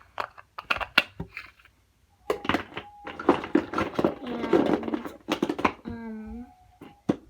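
Slime being squeezed and poked by hand, a run of sticky clicks and crackles with a short pause about two seconds in. A brief pitched vocal sound in the background near the end.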